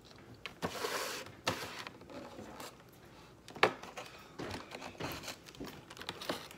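Clear plastic toy packaging crinkling and rustling as it is pulled and worked off its cardboard backing, with scrapes and scattered clicks; a sharp click about three and a half seconds in is the loudest sound.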